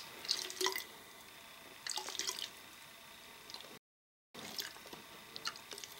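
Filtered water from an MSR TrailShot pocket water filter dripping and trickling in faint, irregular spurts into a plastic bottle as the filter's bulb is squeezed slowly. A short gap of dead silence falls just before four seconds in.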